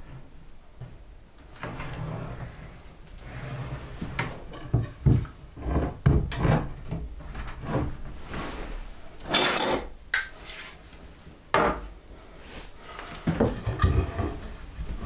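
A wooden fold-down wall table being put up: the hinged board knocking and scraping as it swings up, and a wooden leg set under it, with a short rasping slide a little past halfway and a sharp wooden knock soon after. Several quick clattering knocks near the end.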